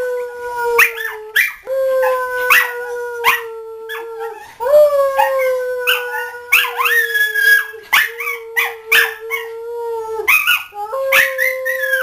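Dogs howling: one long, slightly falling howl that breaks off a few times for breath and starts again, with shorter, higher rising howls and yips over it.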